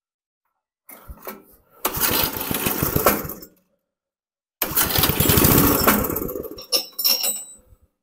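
3 hp Briggs & Stratton engine on a chipper shredder pull-started twice on full choke. Each time it fires and runs for a second or two, then dies. This is a cold start on fresh fuel of an engine that had not been run in years.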